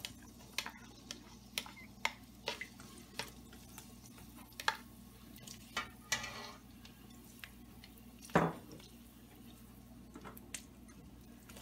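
Spatula scraping and tapping sliced garlic out of a bowl into a wok: scattered light clicks and scrapes, with one louder knock about eight seconds in.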